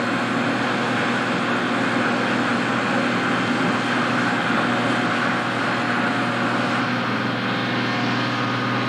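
Steady din of heavy construction trucks' engines running, an even mechanical hum with a broad noisy hiss over it and no change in pace.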